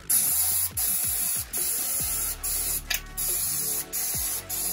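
Aerosol can of brake cleaner spraying in a string of short hissing bursts, each about half a second long with brief breaks between, into a cordless nail gun's piston and firing-pin area to flush out carbon gunk.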